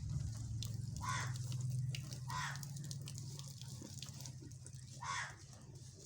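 Three short, harsh animal calls, about a second or two apart, over a steady low hum that fades after a few seconds.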